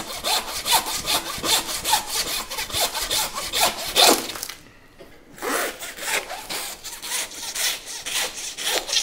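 Butcher's hand bone saw cutting through a hanging beef carcass to free the rib section, in quick back-and-forth rasping strokes about two to three a second. The sawing stops briefly about halfway through, then starts again.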